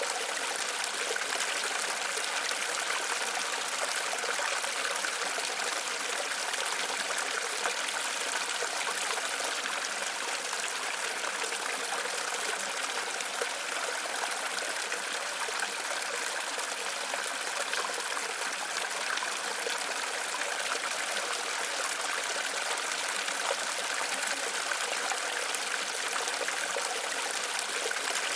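Waterfall water splashing and rushing steadily, an even hiss with little low rumble.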